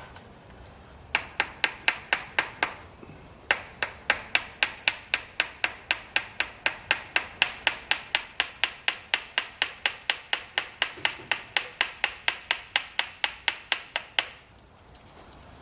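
Hammer tapping on metal in quick light strikes, about four a second, each with a brief ring. There is one knock at the start, a short run, a pause, then a long steady run. The taps are working the oil filter housing out of a Tesla Model 3 rear gearbox.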